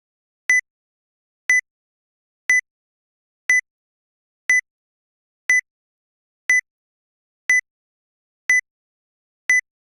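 Electronic countdown-timer beeps: ten short, high-pitched beeps, evenly spaced one a second.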